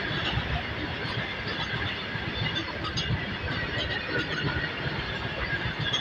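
Loaded open freight wagons rolling past on steel rails: a steady rumble and clatter of wheels and bogies, with faint high wheel squeals now and then.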